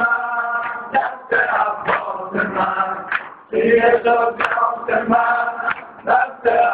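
Men's voices chanting a Persian noha, a Shia lament, in long sung lines. Regular sharp slaps of hands striking chests (matam) keep a steady beat under the chant, about two a second.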